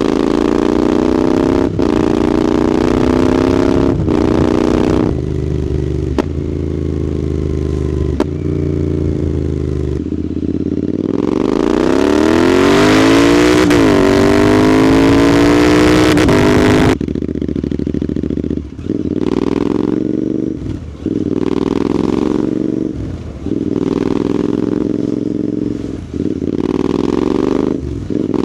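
Royal Enfield 650 parallel-twin running through a Red Rooster aftermarket exhaust while the motorcycle is ridden. The engine note climbs through the gears and drops at each change, with one long, loud pull about midway. It then falls into a run of shorter pulls with brief throttle-offs.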